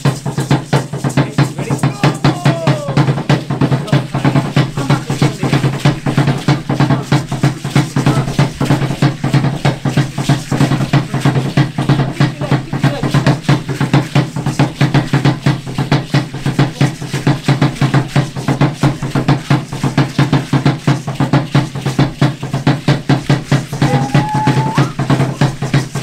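Drumming for an Aztec Concheros dance: a drum beaten in a fast, steady, unbroken rhythm.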